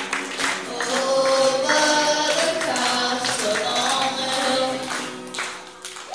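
A boy singing into a microphone while strumming an acoustic guitar. The song dies away near the end.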